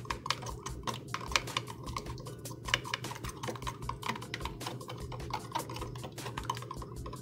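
Two raw eggs being whisked with a utensil in a plastic tub: a fast, steady run of light clicks and taps as the utensil beats against the sides and bottom of the container.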